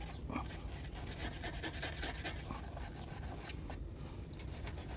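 Small hand wire brush scrubbing the crumbling, chipped edge of an exterior siding panel in quick scratchy strokes, scraping off loose, deteriorated material ahead of patching.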